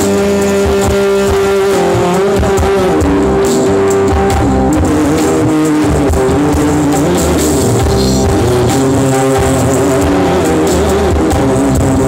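Live rock band playing loudly, with electric guitars and bass over a drum kit.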